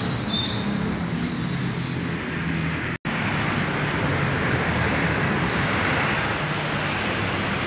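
A steady mechanical drone like an engine or motor running, with a faint low hum under it. It cuts out for an instant about three seconds in.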